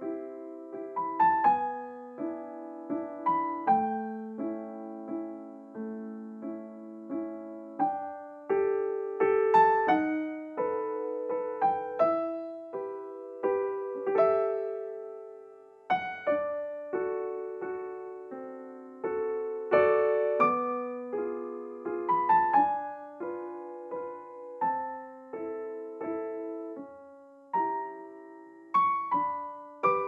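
Slow, gentle solo piano music as background, notes and chords struck and left to ring out.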